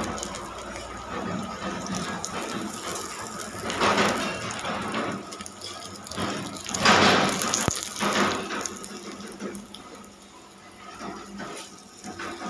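Oil sizzling under a stuffed paratha frying on a griddle, swelling louder about four and seven seconds in.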